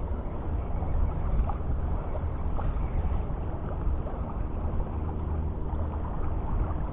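A boat engine running steadily: a low, even drone.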